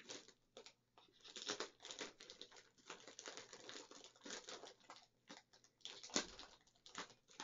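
Plastic poly mailer bag crinkling and tearing in irregular crackles as it is handled and cut open with a folding pocket knife, with one sharper crackle about six seconds in.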